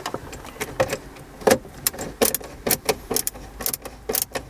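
Irregular sharp metallic clicks and clinks, a few a second, as a car radio head unit is screwed into its dashboard mounting.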